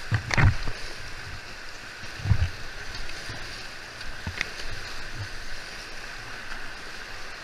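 Rushing whitewater of a fast mountain river heard from a kayak, a steady hiss of rapids. A couple of low thumps stand out about half a second in and again near two and a half seconds.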